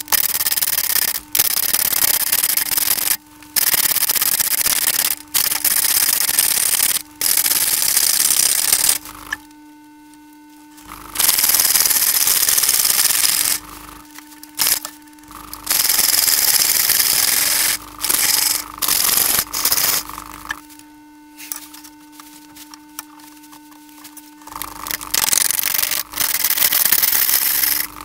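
Turning tool cutting into a large, out-of-round blank of green wood on a wood lathe: a loud hissing rasp of shavings coming off, in passes that stop and start as the blank is roughed round to take the wobble out. In the gaps the lathe's motor gives a steady, much quieter hum, longest from about a third of the way in and again for several seconds past the middle.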